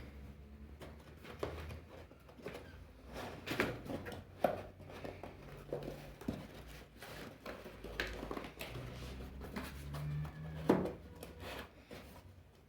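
A cardboard product box being handled and opened: scattered knocks, scrapes and rustling of the box and packaging, with a sharper knock near the end.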